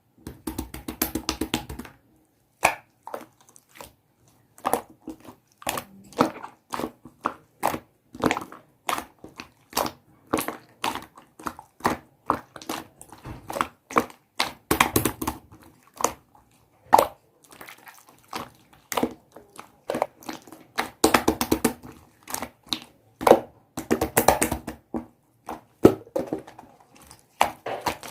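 Slime being squeezed and pressed by hand, giving many sharp clicks and pops in irregular clusters, denser in a few stretches and broken by brief pauses.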